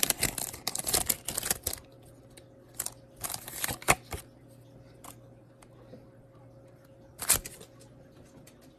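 Foil booster-pack wrapper crinkling and tearing for about the first two seconds, then a few scattered short clicks and flicks of trading cards being handled.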